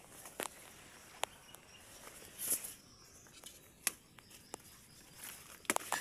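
Taro leaves and stalks rustling as they are grabbed and picked by hand, with a handful of sharp snaps or clicks and a brief swish about halfway through.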